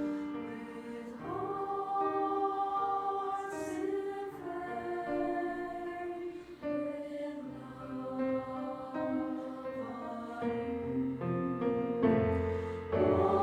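A choir singing with piano accompaniment, notes held and changing about once a second.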